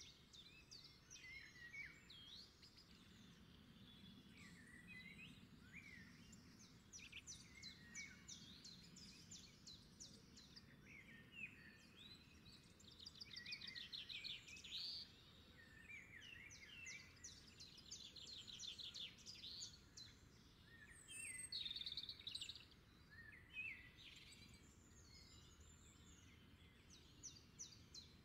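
Several wild birds singing faintly, with a mix of short chirps, quick up-and-down whistles and fast trills, over a low background hiss.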